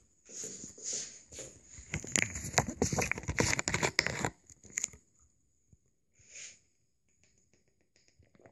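Close crackling and rustling on the microphone, thickest in the first four seconds, then dropping away to faint rustles with one short burst after about six seconds.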